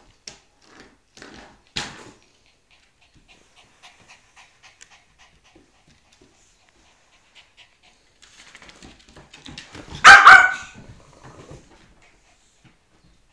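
Two dogs, a beagle puppy and a small terrier cross, playing: quiet scattered clicks and scuffles, then one loud, short, high bark about ten seconds in.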